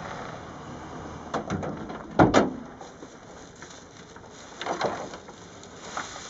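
Gear being handled in the back of a pickup truck: a few knocks and clunks, the loudest a single heavy thump about two seconds in, then more clunks as dry-grass blind covers and metal poles are moved in the truck bed.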